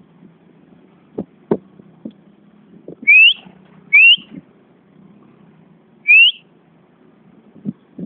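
A person whistling to call a dog: three short, loud whistles that each rise in pitch, two about a second apart and a third about two seconds later. A few soft knocks and taps come between them.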